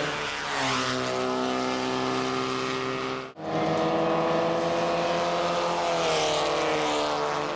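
Formula Nacional open-wheel race car engines running at high revs, their pitch falling as the cars go past. There is a brief dropout at a cut about three seconds in. Near the end another car's engine falls sharply in pitch as it passes close.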